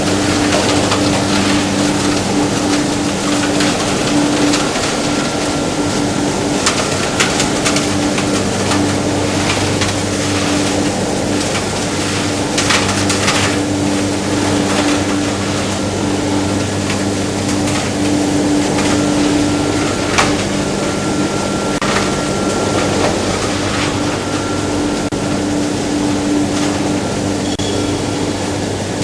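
Plastic film washing and recycling line machinery running: a steady motor hum over a constant rushing noise, with occasional clicks and rattles.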